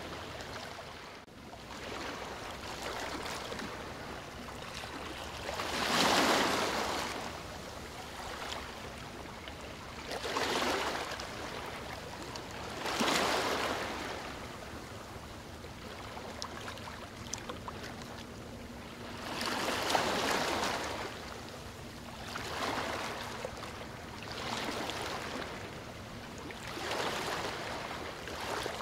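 Rushing water, a steady wash that swells and ebbs every few seconds like waves coming in.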